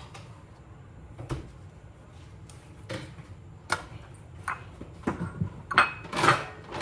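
Kitchen handling clatter: a few separate light knocks and clicks spread through the first few seconds, then a busier, louder cluster of knocks and clinks near the end, like containers and utensils being set down and moved on a counter.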